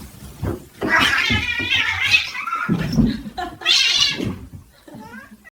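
A domestic cat meowing: two long, drawn-out calls, the first about a second in and the second near four seconds, then a short faint one.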